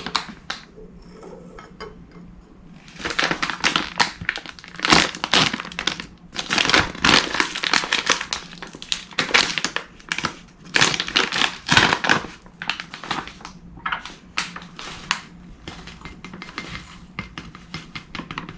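Plastic packet of almond flour being handled and crinkled, with irregular rustles and crackles coming and going, busiest in the middle.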